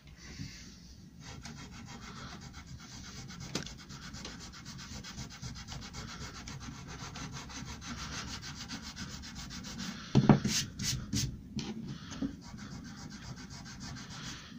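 Coarse eraser rubbed in quick back-and-forth strokes over a beech board, scrubbing off pencil lines. A few louder knocks come about ten seconds in, then the rubbing goes on.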